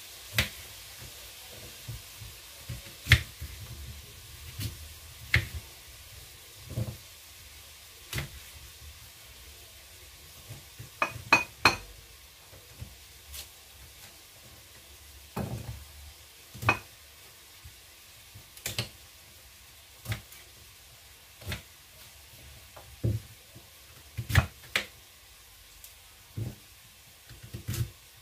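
Kitchen knife cutting through a peeled sweet potato and knocking on a wooden cutting board: separate knocks every second or two, with a quick cluster of sharper clicks about eleven seconds in.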